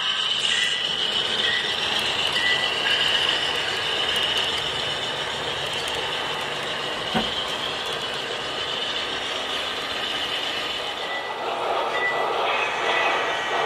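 Model train rolling along the track, a steady rattle of small wheels on rails and running gear as bilevel passenger cars pass, with one sharp click about seven seconds in.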